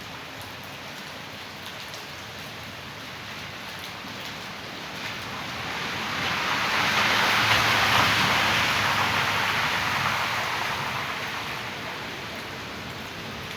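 Rain and rushing rainwater runoff: a steady hiss of water that swells gradually louder through the middle and then dies back down.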